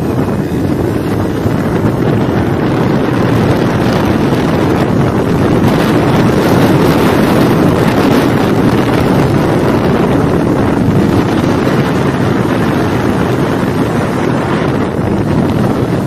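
Steady wind rush buffeting the microphone of a Kawasaki Ninja 400 ridden at speed, with the bike's parallel-twin engine running underneath.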